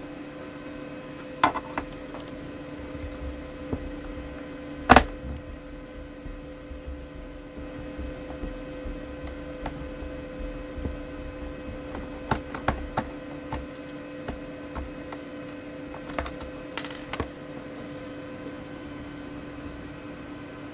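Scattered clicks and knocks of a laptop's plastic casing being handled and moved about on a wooden table, the loudest a single knock about five seconds in, over a steady low hum.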